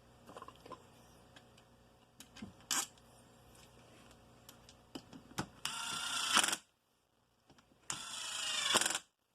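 Impact driver set to low torque running case bolts into the engine's crankcase halves, in two short bursts about six and eight seconds in. Before that, light metallic clicks of bolts being handled.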